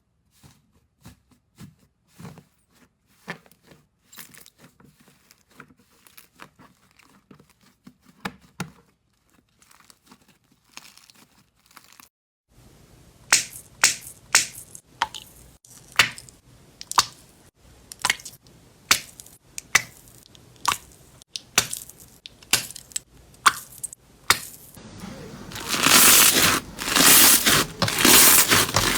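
Slime being squeezed, stretched and poked by hand, giving sticky pops and clicks: sparse and soft at first, then louder pops about once a second from about halfway, turning into dense, continuous crackling near the end.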